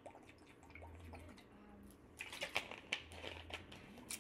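A few faint swallowing gulps, then a thin plastic water bottle crinkling and crackling from about two seconds in as it is lowered and handled at the cap.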